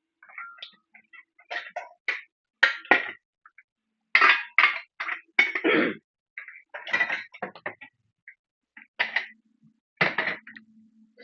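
Eating up close: irregular short clinks and scrapes of cutlery against dishes, with a low steady hum for the last two seconds or so.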